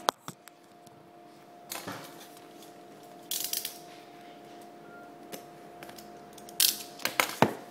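Cardboard phone box being handled and turned over: scattered taps, clicks and short scrapes of fingers on the box, with a cluster of sharper clicks near the end, over a faint steady hum.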